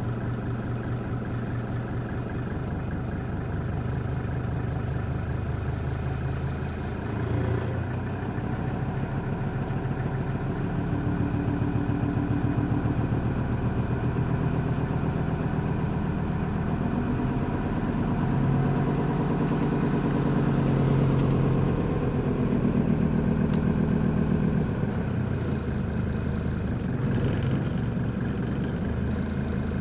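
Mercedes-Benz W123 300D's five-cylinder diesel engine running with a strange ticking knock that sounds like an old tractor. The owner has found all five cylinders working, so a dead cylinder is not the cause. The engine note shifts a little a few times.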